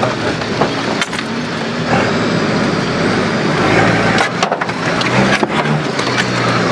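A 4x4's engine running under load as it crawls over loose rocks, with several sharp knocks and clunks from stones and the jolting body.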